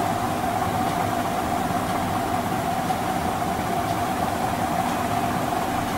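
Steady background hum and hiss with one constant mid-pitched tone, unchanging throughout, like a fan or other machine running.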